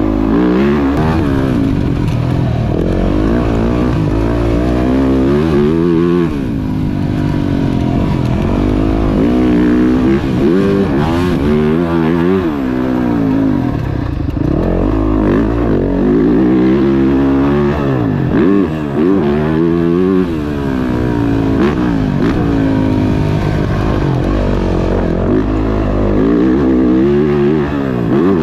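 2024 Yamaha YZ450F's single-cylinder four-stroke engine under hard riding on a dirt track. The engine note climbs and drops again every couple of seconds as the throttle is opened and closed through the gears.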